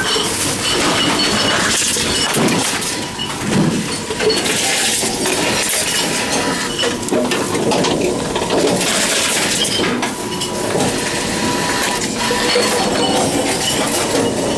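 Envipco CF-1500 reverse vending machines taking in empty containers, with cans and bottles clinking and clattering inside over the machines' steady running noise.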